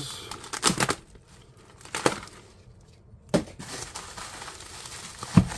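Bubble wrap and cardboard packaging being handled: intermittent rustling and crinkling, broken by a few sharp clicks or taps.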